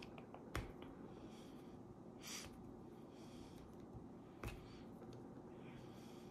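Two sharp clicks about four seconds apart: the tools of a Leatherman Juice multitool snapping into place as it is handled, with faint handling noise between.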